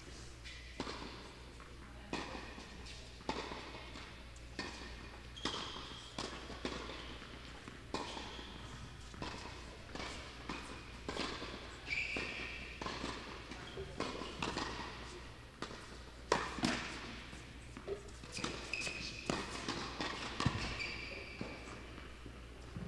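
Tennis play: sharp knocks of a tennis ball struck by rackets and bouncing on the court, coming roughly every half second to second and a half, with footsteps and a few short high squeaks.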